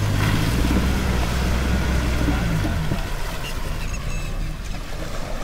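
Maruti Gypsy King's four-cylinder petrol engine working under load as the 4x4 drives through a muddy puddle, with water and mud churning under the tyres. The engine note drops and eases about three seconds in.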